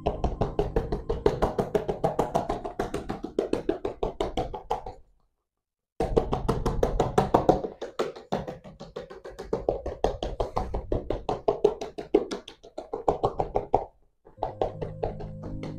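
Quick, rapid patting as a paint-covered hand dabs blue fabric paint onto a large stretched canvas, each pat a dull, drum-like tap on the taut cloth. The patting stops for about a second near the 5-second mark, then resumes and runs until close to the end.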